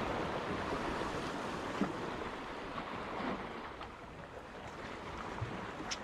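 Steady wash of sea water with wind noise on the microphone.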